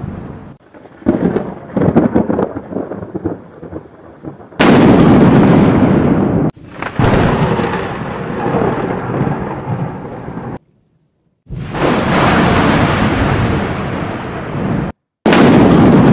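Thunder: a couple of sharp cracks in the first two seconds, then four loud thunderclaps, each starting suddenly and rumbling away over a few seconds. Twice the sound cuts off dead for a moment before the next clap.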